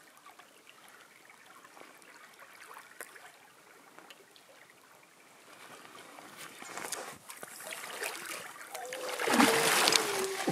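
Quiet water lapping, then a hooked steelhead thrashing and splashing at the surface, loudest near the end, with a faint steady tone running under the splashing.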